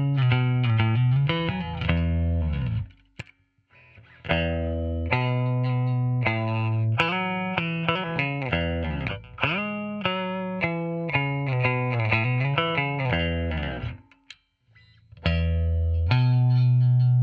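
Squier Bass VI six-string bass with factory strings, played through a Line 6 Helix set to an acoustic amp and an Ampeg 4x10 cab. It plays a melodic line of single notes with several pitch bends, stopping twice for about a second.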